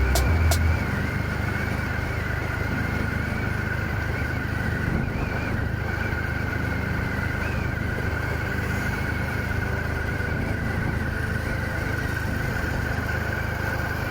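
Motorcycle running at a steady cruising speed, a continuous low engine rumble with road and wind noise.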